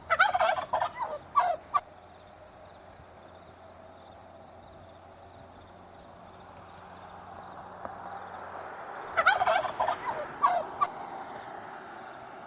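A turkey gobbling twice: a rapid, quavering gobble right at the start and another about nine seconds in.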